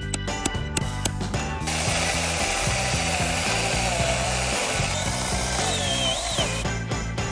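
Battery-powered Makita-compatible mini chainsaw cutting into a tree stump. It runs for about five seconds from a little under two seconds in, and its motor pitch wavers under load. Background music with a steady beat plays throughout.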